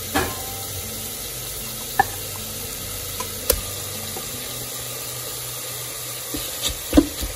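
Onions, tomatoes and green chillies sizzling steadily in the stainless steel inner pot of an Instant Pot on sauté, with a few sharp clicks and, near the end, a run of light knocks.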